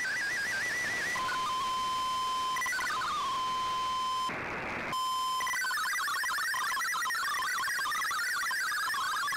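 Shortwave radio receiving a digital MFSK broadcast: a wavering data tone ends about a second in and gives way to a steady single tone with a short downward glide, broken by a half-second burst of hiss about four seconds in. About five and a half seconds in, the rapid warbling tones of MFSK64 text data start and run on.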